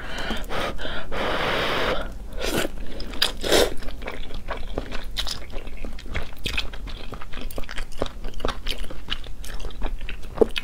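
A person slurping rice noodles and chewing them. A long slurp over the first couple of seconds is followed by a run of shorter slurps and quick wet chewing clicks.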